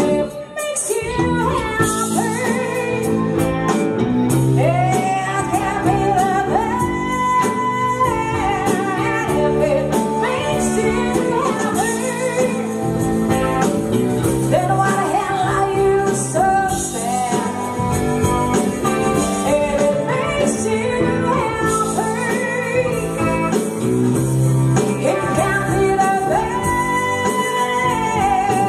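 Live band playing a song, a woman singing the lead over electric guitar, bass guitar and drums.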